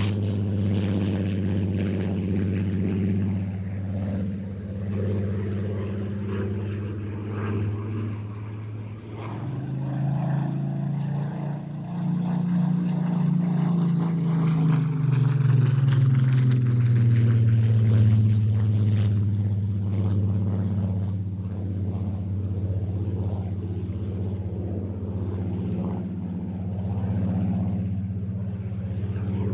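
Spitfire Mk XIV's Rolls-Royce Griffon V12 engine running in flight. The engine note climbs in pitch about a third of the way in, then falls again past the middle, where it is loudest as the aircraft passes.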